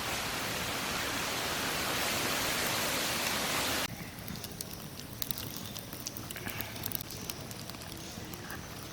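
Cooking oil heating in a pan: a steady hiss that stops abruptly about four seconds in, then quieter scattered crackles and ticks.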